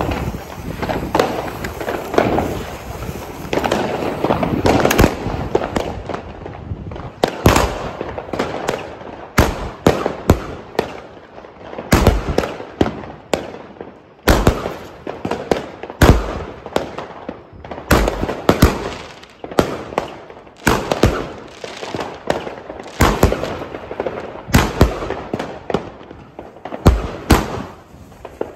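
Funke Gigant 'Edelweiß' 38 mm firework battery. A few seconds of hissing while the fuse sparks, then the battery fires a long string of shots, sharp bangs coming irregularly, often two or three in quick succession, as the shells burst into glittering stars.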